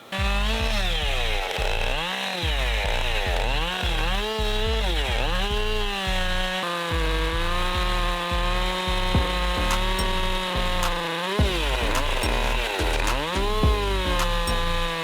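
Chainsaw on a chainsaw mill running at high throttle through a log, its engine pitch dipping and recovering again and again as the cut loads it, then holding steady through the long stretches of cutting.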